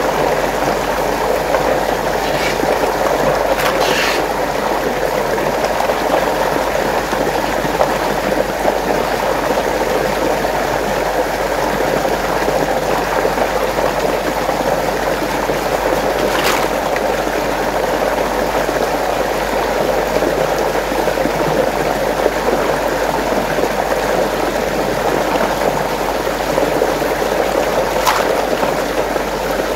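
Running water swirling in a steady, continuous rush, with a few faint clicks.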